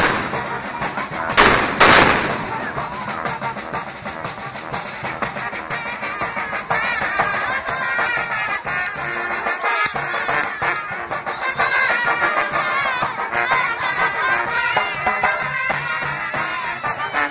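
Two loud firework bangs about a second and a half in, then the steady crackle of a burning castillo fireworks tower with brass band music playing over it.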